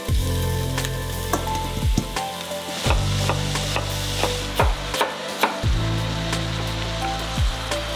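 Background music with deep held bass notes and a kick drum, over a steady sizzling hiss and a scatter of knife strikes on a wooden cutting board.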